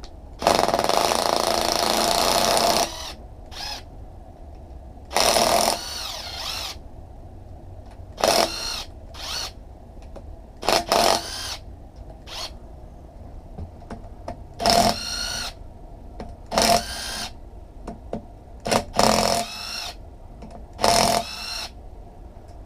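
A power tool run in about ten short bursts, the first the longest, spinning bolts out during an engine teardown; its motor pitch climbs as each burst spins up.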